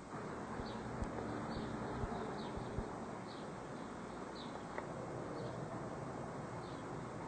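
Steady outdoor background hiss with faint, short high chirps repeating about once a second, and a few soft knocks in the first three seconds.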